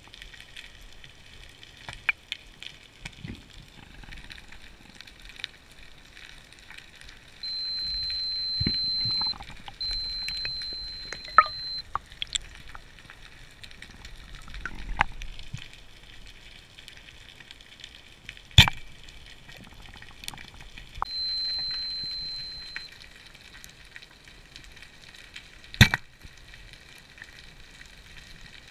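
Dive watch alarm beeping underwater: three long, steady high beeps of about two seconds each, two close together and a third some ten seconds later. The watch is going off at random times. Underneath is a constant crackling hiss of the water, and two sharp knocks in the second half are the loudest sounds.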